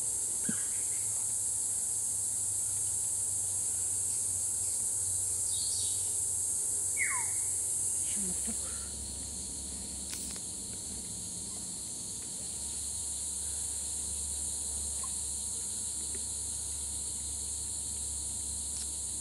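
Steady high-pitched insect chorus, the dominant sound throughout. A bird gives one falling whistle about seven seconds in, with a few faint chirps scattered around it.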